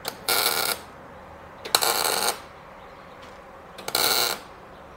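Arc welding in three short bursts, each about half a second long. A nut is being welded onto a broken exhaust-manifold bolt in a 5.3 LS V8's cylinder head so that the bolt can be extracted.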